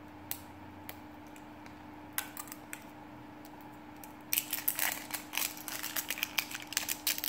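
Plastic L.O.L. Surprise Pets ball shell being handled and pried apart by hand: a few scattered clicks at first, then from about four seconds in a dense run of rapid plastic clicking and crackling.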